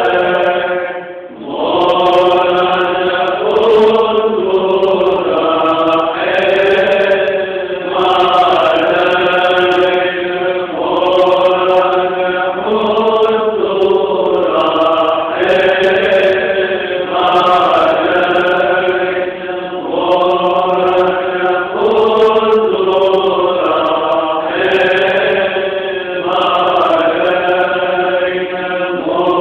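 Monks chanting a Syrian Orthodox Lenten prayer together, in continuous sung phrases with a brief pause about a second in.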